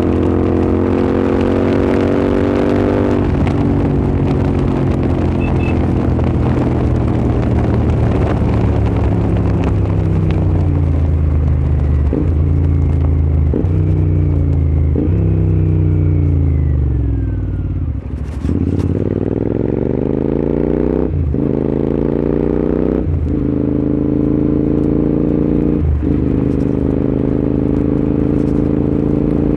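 Royal Enfield Continental GT 650's 648 cc parallel-twin running through aftermarket Red Rooster exhausts while ridden. The engine note falls steadily as the bike slows, with a few sharp cracks, and nearly drops away just past halfway. It then climbs again through several gears, with a short break at each upshift.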